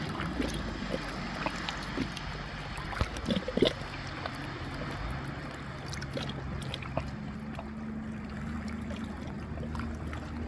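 A boat motor hums steadily over the sound of moving river water, with scattered small clicks and knocks.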